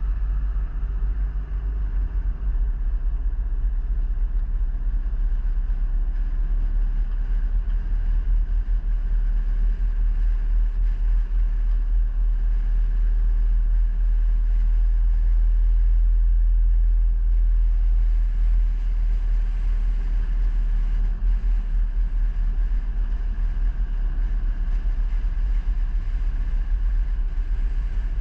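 A vehicle on the move: a steady, loud low rumble of engine and road noise.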